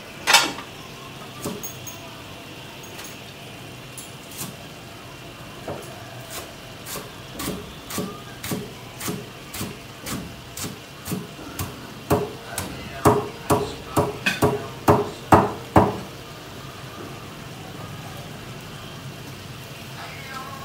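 A knife chopping on a cutting board off to the side of the wok: a sharp knock near the start, then a run of evenly spaced chops that come faster and louder for the last few seconds before stopping. This is the chopping of the green herbs that go into the stir-fried shrimp. A steady hiss of the simmering wok runs underneath.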